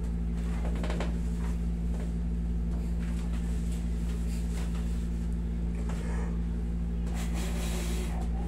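Window-type air conditioner running with a steady low hum, with a few faint taps and rustles on top.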